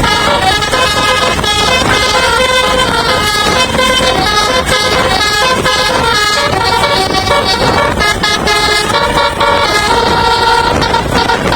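A bus's musical air horn (telolet) playing a melody of short stepped horn notes, with a dense rumble of noise underneath.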